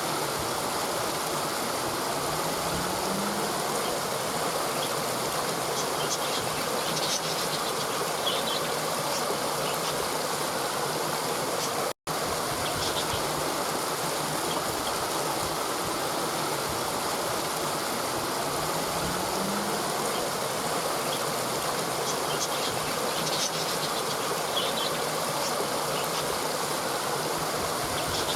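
Waterfall water rushing in a steady, even wash of noise, with faint high chirps twice. The sound cuts out for an instant about twelve seconds in.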